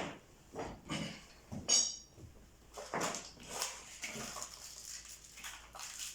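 A new wheel bearing being tapped into a motocross rear hub with a hammer on a socket pressing the outer race: a string of irregular metallic knocks, one ringing briefly about two seconds in.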